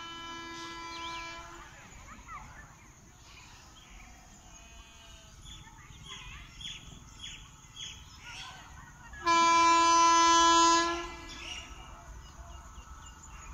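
An approaching train's horn sounding two steady single-pitch blasts: a quieter one of about two seconds at the start, then a much louder one of nearly two seconds about nine seconds in.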